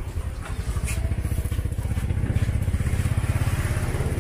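A small motorcycle engine running close by, with a fast, even pulsing that swells a little in the middle.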